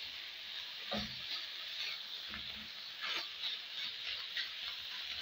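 Samosa filling of onions and spring onions sizzling in a frying pan while being stirred, with a steady hiss and short scrapes against the pan about a second in and again about three seconds in.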